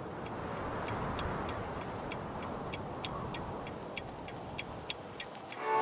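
Clock ticking about three times a second, growing louder, over a steady rushing noise; music comes in right at the end.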